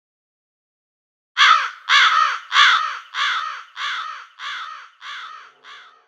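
Crow cawing: a run of eight harsh caws, evenly spaced a little over half a second apart, each fainter than the last, beginning about a second and a half in.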